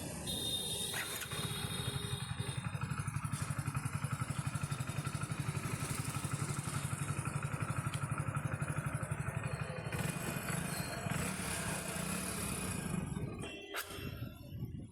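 Hero Splendor BS6 motorcycle's single-cylinder engine starting about a second in and idling steadily with an even fast beat, running again after its wiring repair, then stopping near the end.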